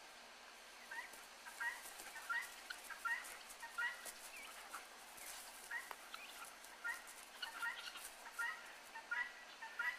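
Domestic white turkey gobbling in short stuttering bursts, about one every three-quarters of a second, with a break of about two seconds in the middle.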